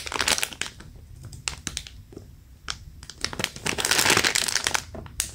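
Clear plastic squishy packaging crinkling as it is handled and squeezed by hand, in short crackly bursts with a few separate clicks, getting louder and denser about three seconds in.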